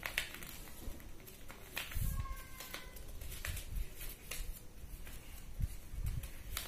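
Craft paper being folded and creased by hand, with scattered soft crackles of the paper and a few dull thumps as the hands press the folds flat against the hard floor.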